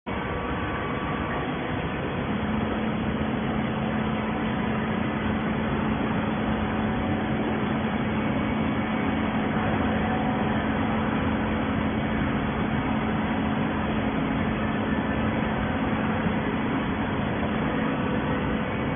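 Automatic horizontal hydraulic baler running: steady machine noise with a constant low hum that sets in about two seconds in.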